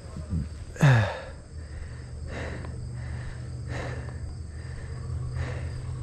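A tired mountain biker's breathing: a loud voiced exhale falling in pitch about a second in, then softer breaths about every second and a half. Insects keep up a faint, steady trilling in the grass.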